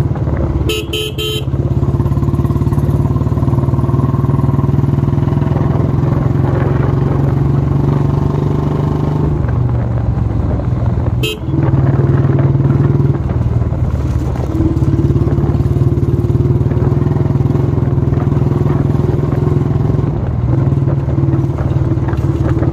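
Royal Enfield Classic 350's single-cylinder engine running steadily under way, its note dipping briefly a little before the middle. A horn gives three quick beeps about a second in and one short beep near the middle.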